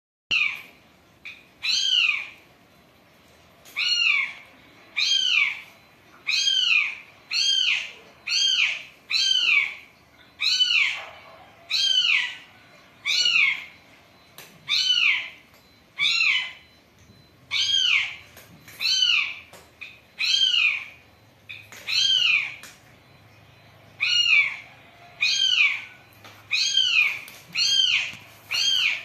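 A cat meowing over and over, about one short, high meow a second, each rising and then falling in pitch.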